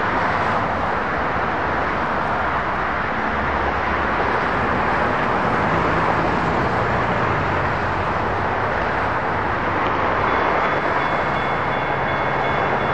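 Steady even noise. About ten seconds in, a railroad crossing's electronic bell, a GS Type 1 E-Bell, starts ringing as the crossing signals activate for an approaching light-rail train.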